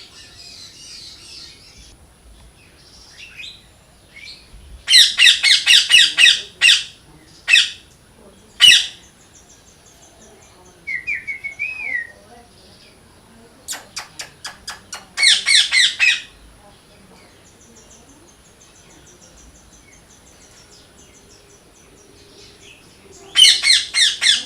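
A parrot calling in loud bursts. There are rapid runs of repeated calls about five seconds in, again around fifteen seconds, and near the end, with single calls in between and a short wavering call around eleven seconds.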